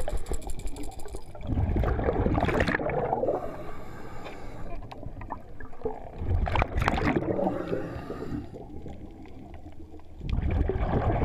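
Scuba regulator breathing underwater: three bursts of exhaled bubbles, about four seconds apart, with a fainter hiss of inhalation between them.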